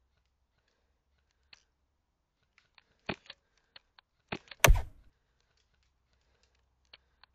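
Suppressed MK23 airsoft pistol on HPA firing: a few sharp, muted clicks between about three and five seconds in, the last and loudest with a short tail, with faint ticks before and after.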